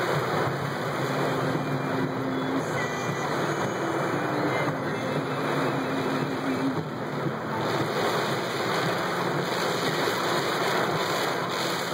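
Heavy thunderstorm rain pouring steadily onto a car's roof and windshield, heard from inside the car. A faint low hum comes and goes twice.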